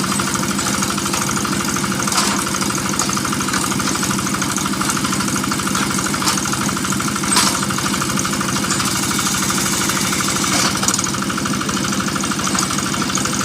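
Engine of a water-well drilling machine running steadily at a constant speed, with a fast, even beat and a few brief metallic knocks.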